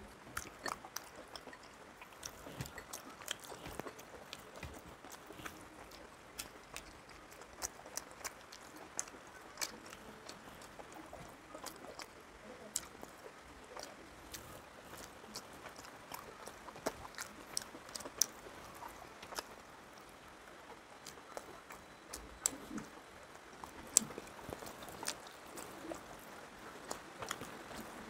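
Close-miked eating by hand: chewing and mouth sounds, with scattered sharp clicks throughout and a few louder ones in the second half.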